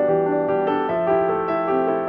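Background music: a piano or electric piano playing a slow, gentle passage of sustained notes and chords.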